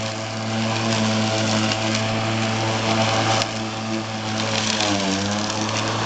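Homemade remote-control robotic lawn mower running steadily as it drives across the grass, a constant pitched hum. Its pitch dips briefly and recovers about five seconds in.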